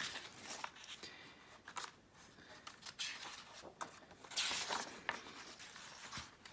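Pages of a K-pop album photobook being turned by hand: soft paper rustles and swishes, the loudest page flip about four and a half seconds in.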